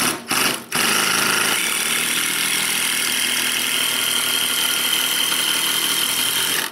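Cordless drill running into the corner of a galvanized sheet-metal box: two short trigger pulls, then one steady run of nearly six seconds that stops suddenly.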